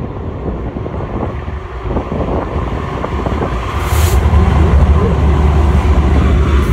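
Several BNSF diesel locomotives passing close by, their deep engine rumble growing louder as the lead units go past, with a short rush of noise about four seconds in.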